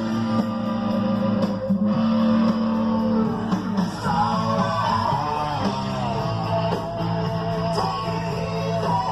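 Guitar-led rock-style music playing.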